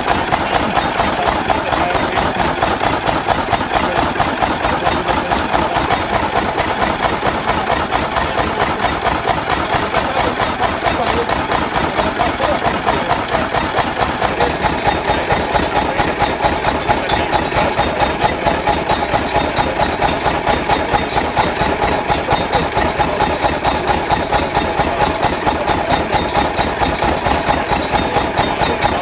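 Deutz single-cylinder stationary diesel engine running steadily, with an even, rapid beat that holds the same speed throughout.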